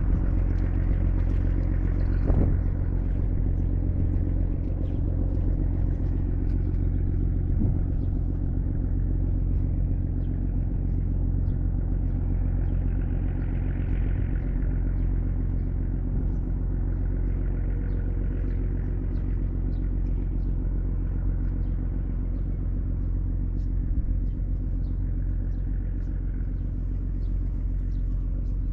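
Ferry boat's diesel engine running steadily: a low, even drone with a faint light ticking over it.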